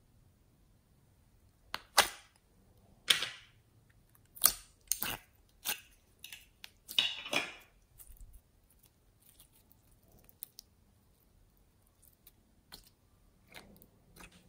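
Slime being stretched and squeezed by hand, making a run of sharp pops and clicks, close together and loudest in the first half, then fainter and sparser after about eight seconds.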